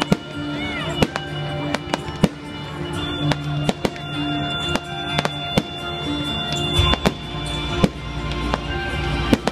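Fireworks display: aerial shells bursting overhead in a rapid string of sharp bangs and crackles, with a deeper low rumble joining about seven seconds in.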